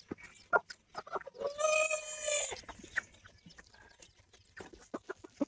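A chicken calls once, a single held call of about a second starting about a second and a half in. Faint scattered clicks and knocks are around it.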